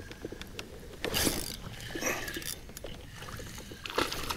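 Spinning reel being cranked as a hooked fish is reeled in, with a run of small clicks from the reel and two brief noisy bursts, about a second in and near the end.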